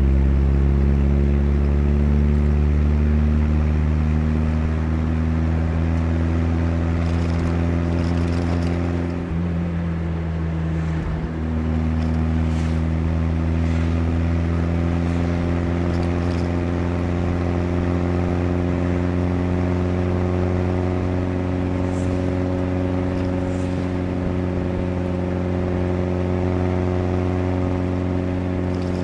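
1982 Chevrolet Chevette's rebuilt 1.4-litre eight-valve four-cylinder engine running while driving, its pitch climbing slowly and steadily, with a brief dip about ten seconds in.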